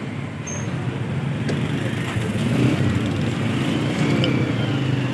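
Road traffic running past: a steady low engine rumble that grows a little louder about two and a half seconds in.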